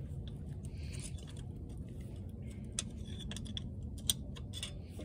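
Scattered light metallic clicks and ticks from a hand tool working a bolt on a cast-iron Wisconsin V4 engine block, mostly in the second half, over a steady low background rumble.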